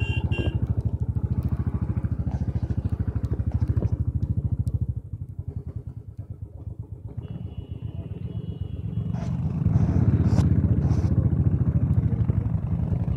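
Royal Enfield Bullet 500's single-cylinder engine running with a steady, rapid thump. It drops quieter about five seconds in and comes back stronger about ten seconds in.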